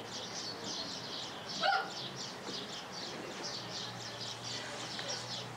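A bird chirping over and over in a steady rhythm, about three short high chirps a second.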